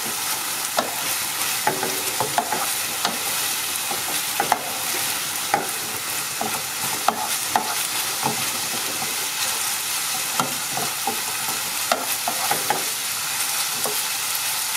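Minced meat with onion and garlic sizzling in a non-stick frying pan as a wooden spoon stirs it, with a steady hiss and frequent irregular scrapes and knocks of the spoon against the pan.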